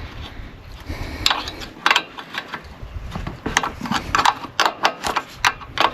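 Irregular sharp clicks and clinks of metal parts and hand tools being handled while a lawnmower carburetor is taken apart; it holds water, which is why the engine won't start.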